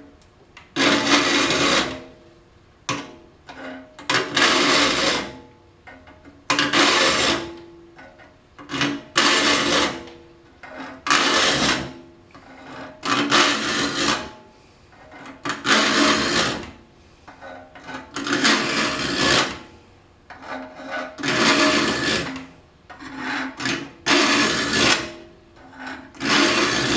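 A file being pushed across the teeth of a Disston D8 rip saw, held square to the blade for a rip filing. There are about a dozen rasping strokes, each about a second long and roughly two seconds apart, each with a ringing tone in it.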